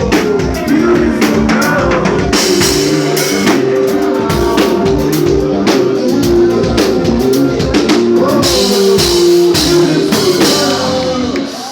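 Music with a drum-kit beat and bass drum, with some singing over it.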